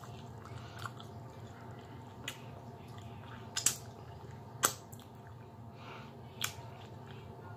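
A person chewing and smacking their lips while licking food off their fingers. A few short wet mouth clicks, the loudest about three and a half and four and a half seconds in, sound over a steady low hum.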